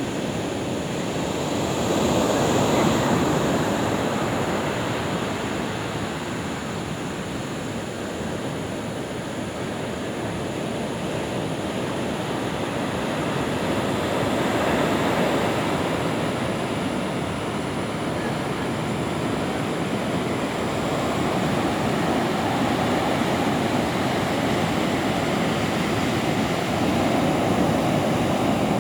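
Ocean surf: a steady wash of waves on the shore that swells and fades slowly every several seconds.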